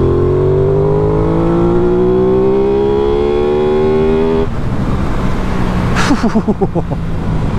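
Aprilia Tuono 660's parallel-twin engine accelerating hard under the rider, its note climbing steadily for about four and a half seconds and then dropping off suddenly.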